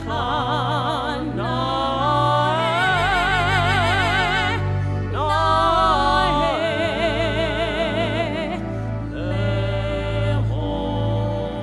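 A solo voice singing long, held notes with a wide vibrato in an operatic style, over sustained low accompanying notes.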